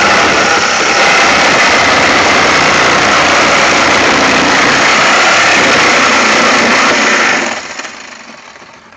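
Reciprocating saw fitted with a wood blade, cutting through the sheet-metal roof of a car. It runs loud and steady, then stops about seven and a half seconds in and winds down.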